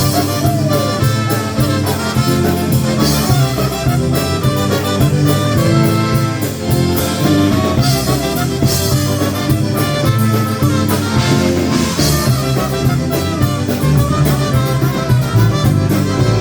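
Live polka band playing an instrumental break between sung verses, with a steady drum beat under the melody.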